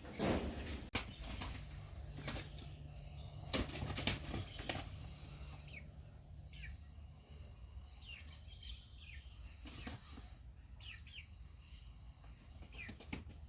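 Bird wings flapping in several short bursts during the first five seconds and once more about ten seconds in, then birds chirping with short falling notes.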